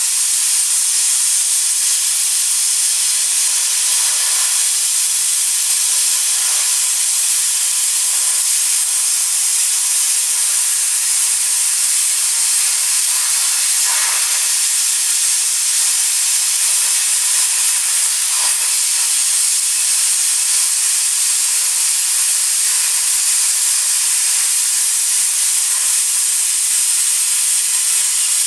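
Plasma cutter torch cutting steel: a loud, steady high hiss of the compressed-air arc that runs on without a break.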